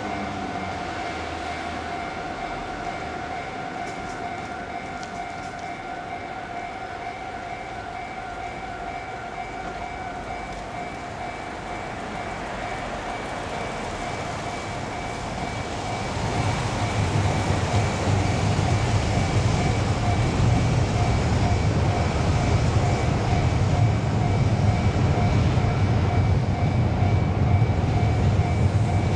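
Japanese level-crossing warning bell ringing steadily and repeatedly. About halfway through, a Tohoku Main Line train comes through the crossing, and its rumble grows loud and stays loud under the ringing.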